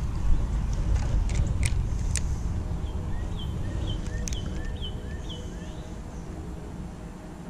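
Steady low rumble that fades toward the end, with a few sharp clicks in the first half. In the middle a bird calls a short run of about six quick, repeated chirps.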